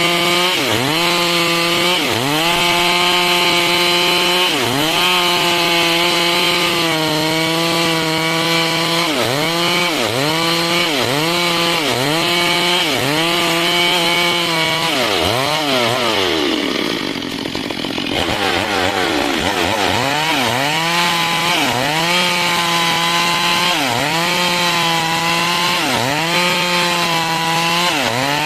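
Stihl MS 382 two-stroke chainsaw cutting lengthwise through wood to make boards, its engine pitch dipping and recovering about once a second under load. A little past the middle the engine slows right down, then revs back up and carries on cutting.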